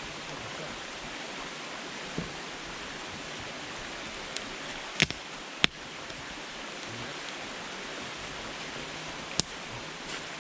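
Firewood burning in a campfire: a steady hiss of flames with several sharp crackling pops, the loudest about five seconds in.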